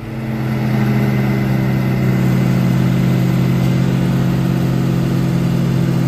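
Tractor-driven Dion forage chopper started up after clearing a plug: tractor engine and chopper come up to speed over the first second, then run steadily with a steady low hum.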